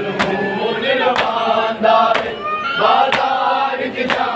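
A crowd of men chanting together, with the sharp slap of open palms striking bare chests (matam) about once a second, keeping a steady beat under the voices.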